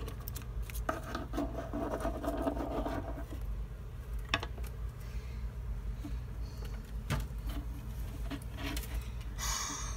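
Handling noise: small plastic toy figurines being moved and set down on a fabric-covered surface, with scattered light clicks and rubbing over a steady low hum.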